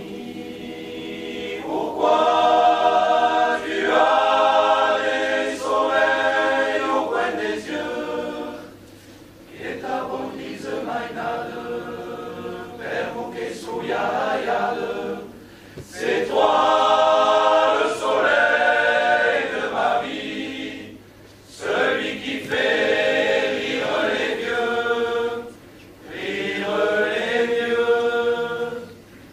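Men's choir singing a cappella, in sustained phrases with short pauses between them.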